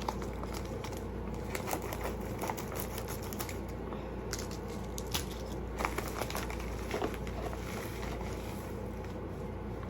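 Packaging being handled and opened by hand: irregular crinkling and rustling with scattered sharp clicks and taps, over a steady low hum.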